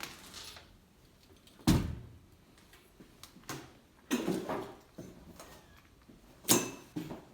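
A few irregular knocks and thumps, the loudest about two seconds in and again near the end, with a rougher scraping cluster in between.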